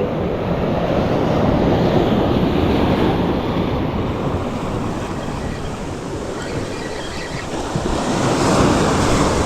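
Ocean surf washing in, with wind buffeting the microphone; the rush swells about two seconds in and again near the end.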